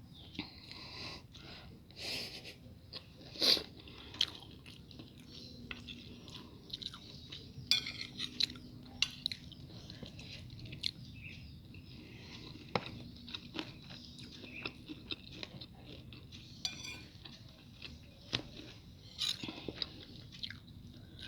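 A person chewing and crunching food close to the microphone, with many short crackling crunches and occasional clinks of dishes.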